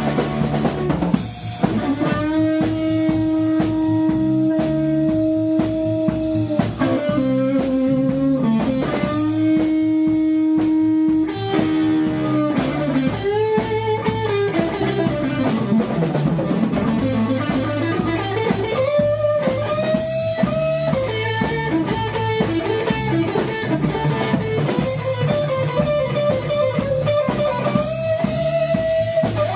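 Band playing an instrumental passage of a blues-rock song on electric guitar and drum kit. A lead line holds long notes, and about halfway through it slides down a long way and climbs back up.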